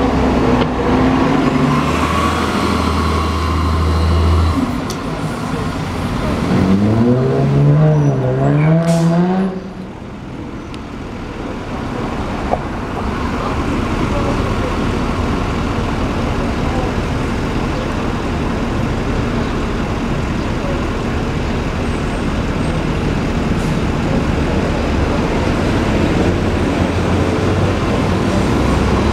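2012 New Flyer C40LF CNG city bus pulling away from a stop. Its engine idles low at first, then revs up with a rising tone that dips once mid-climb, as at a gear change, about seven to nine seconds in. After that comes a steady wash of street traffic.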